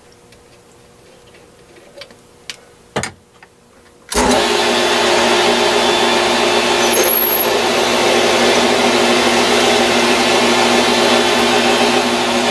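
A few faint clicks, then about four seconds in a Grizzly G0602 benchtop metal lathe switches on and runs steadily, a loud even machine hum with a steady whine, spinning the workpiece for drilling with a quarter-inch bit in the tailstock chuck.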